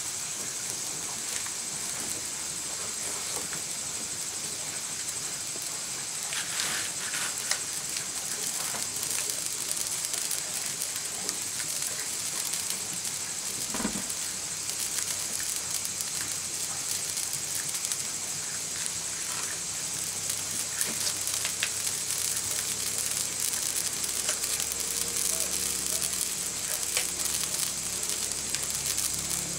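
Vegetables frying in a pan over an open wood fire: a steady sizzle with scattered crackles and pops. There is a single short knock about halfway through.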